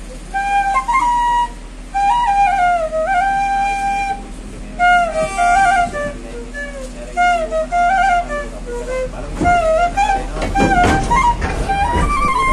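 Side-blown bamboo flute playing a melody in short phrases, with notes bending and sliding into one another. About ten seconds in, a burst of rattling noise runs under the flute for a couple of seconds.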